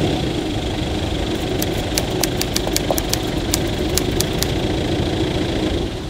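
Hyundai Galloper SUV engine idling steadily, with a run of sharp high ticks from about a second and a half in to about four and a half seconds. The engine sound drops slightly near the end.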